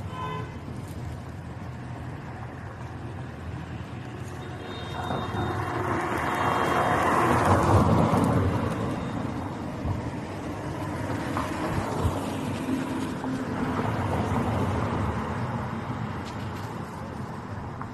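Street noise with a vehicle passing, swelling to its loudest about eight seconds in and then fading.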